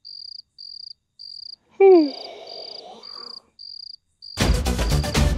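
Crickets chirping in short, evenly spaced pulses, a little under two a second. About two seconds in a man gives a loud, drawn-out yawn whose pitch falls. Music starts loudly near the end.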